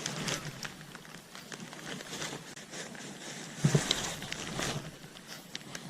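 Rain pattering, with scattered close drops ticking sharply, and a single low thump a little past halfway.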